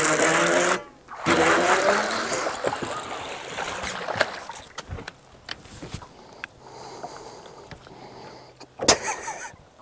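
A hooked bass splashing and thrashing at the surface beside the boat as it is reeled in, loudest in the first few seconds, with a man's wordless shouts at the start. Two sharp knocks near the end.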